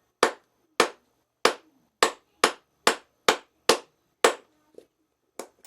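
Mallet blows on a Lee Loader's bullet-seating stem, driving a 180-grain bullet into a 30-40 Krag case: about nine sharp, evenly spaced knocks at roughly two a second, then two lighter taps near the end as the bullet seats.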